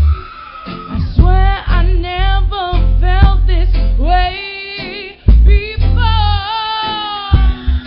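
Live band music with a woman singing a sustained, bending melody over heavy low bass notes.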